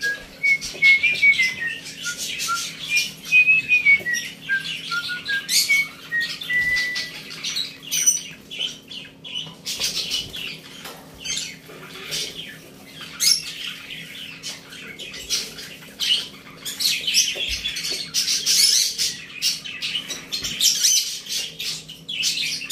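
Caged cockatiels chirping and squawking almost without pause, with a whistled run of rising and falling notes over the first seven seconds and a busier stretch of calls past the middle. A steady low hum runs underneath.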